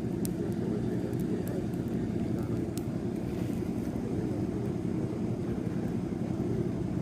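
Bonfire burning: a steady low roar with a few sharp crackling pops.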